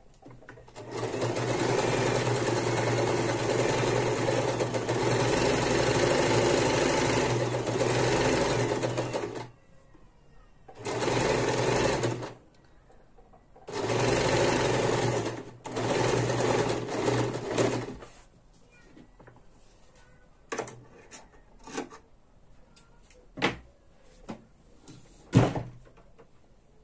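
Electric domestic sewing machine stitching a seam: one long steady run of about nine seconds, then three shorter runs with brief pauses between them. After that come a few separate sharp clicks and knocks, the loudest near the end.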